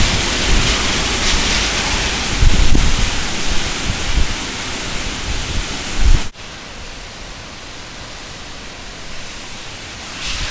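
Hurricane wind gusting with heavy driving rain, the gusts buffeting the microphone in a low rumble. About six seconds in the sound cuts off abruptly and is replaced by a quieter, steady hiss of rain, which grows louder again near the end.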